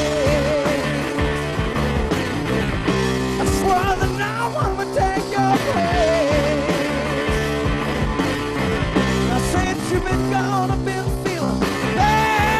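Rock music: a band with steady guitar chords and drums, and a wavering high lead line over it.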